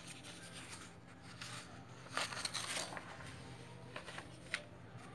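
Sheets of paper being handled and moved: a soft rustle about two seconds in, with a few scattered light clicks and taps, over a faint low hum.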